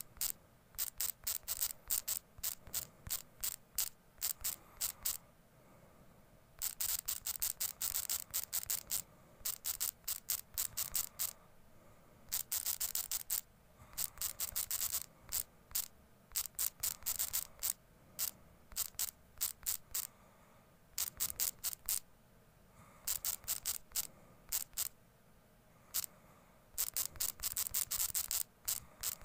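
Typing on a smartphone's on-screen keyboard: runs of short, sharp key clicks, several a second, with pauses of about a second between runs.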